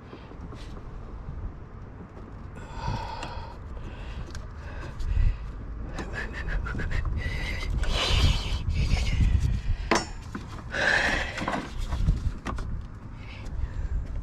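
Irregular clicks, knocks and rubbing from hand work on vehicle parts and tools, busiest in the second half.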